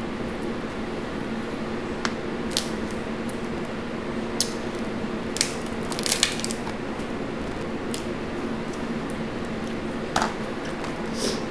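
Hands cracking and peeling boiled blue crab and crawfish shells: scattered sharp cracks and snaps, with a quick cluster about six seconds in. Under them runs the steady hum of a box fan.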